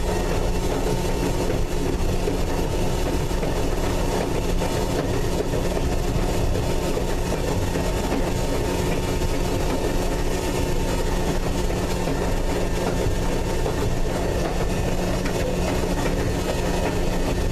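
North Shore Line 749, an electric interurban car, running along the track at speed, heard from inside the car. The running noise is steady, with a faint steady hum under it.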